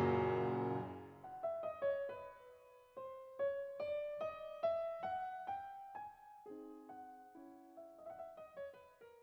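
Background music: a slow piano melody of single notes after an opening chord, growing fainter and dying away near the end.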